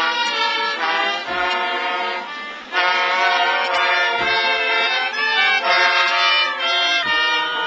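Music with several pitched instruments playing together; it gets louder about three seconds in.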